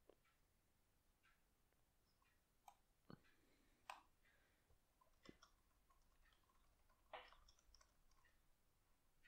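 Near silence: faint room tone with a few scattered, quiet clicks and small knocks.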